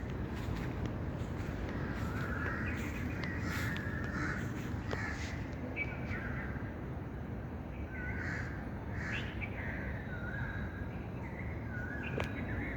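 Several crows cawing repeatedly, short calls one after another, over a steady low background rumble.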